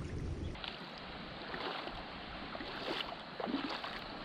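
Faint shallow tide-pool water with wind on the microphone, and scattered small splashes and clicks. A low rumble cuts off suddenly about half a second in.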